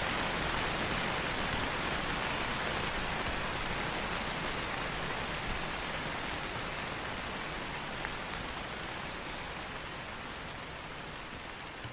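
Steady rain, an even hiss of falling water with a few faint drop ticks, slowly getting quieter.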